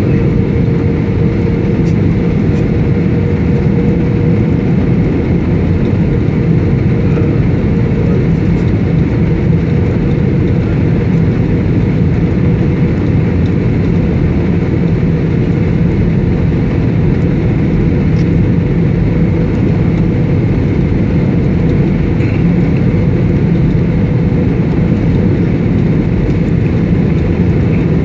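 Steady drone inside an airliner's cabin: jet engines and airflow rushing past the fuselage, holding an even level with a faint steady hum.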